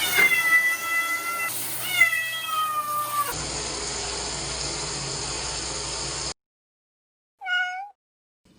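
Kitten giving two long, drawn-out meows, then about three seconds of steady rushing noise, and one short meow near the end after a sudden silence.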